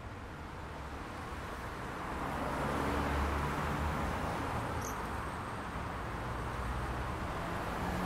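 City road traffic: tyre and engine noise of a vehicle passing by swells about two to three seconds in, with a low rumble, then eases off into the steady traffic hum.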